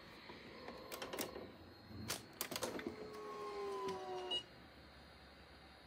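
Cricut AutoPress heat press closing: a few clicks and clunks of the handle and lid, then its motor running for about a second and a half with a slightly falling whine that stops abruptly as it clamps down on the shirt.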